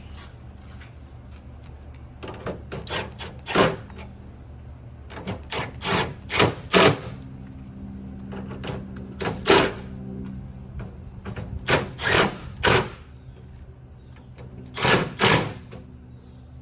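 Plastic clips and grille panel being pushed and knocked into place on a pickup's front end: a series of sharp clicks and knocks in irregular clusters, over a steady low hum.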